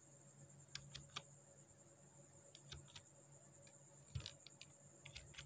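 Computer keyboard keys pressed now and then: a handful of faint, separate key clicks, a few more close together near the end, over a low steady hum.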